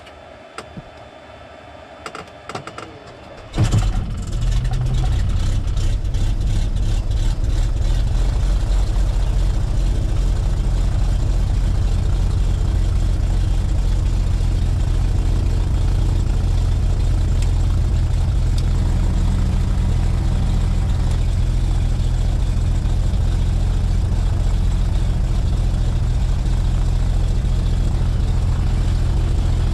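A few clicks, then the turbocharged rear engine of a Cessna 337 Skymaster catches about three and a half seconds in and settles into a steady idle, heard from inside the cockpit.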